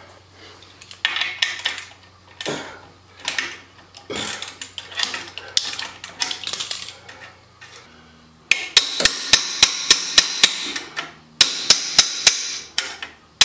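Scraping and rubbing of hands and tools on a motorcycle exhaust pipe, then a ratchet wrench clicking in two quick runs of about four clicks a second as it undoes the exhaust pipe clamp.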